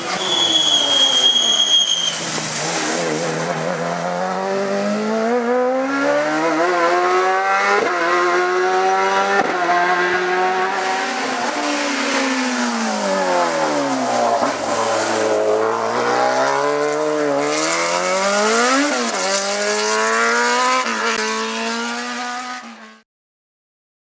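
Hillclimb race car engine revving hard as it passes and climbs away, its pitch climbing and dropping again and again with the gear changes, with one deeper fall and recovery in the middle. A brief high squeal is heard in the first couple of seconds, and the sound cuts off suddenly about a second before the end.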